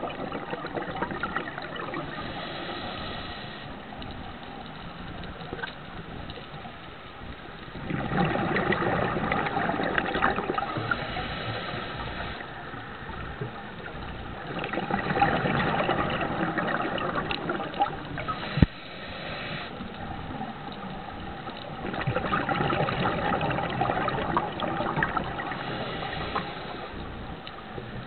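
Scuba diver's regulator breathing underwater: three long bubbling exhalations a few seconds each, about seven seconds apart, with quieter stretches between, and one sharp click near the end of the second.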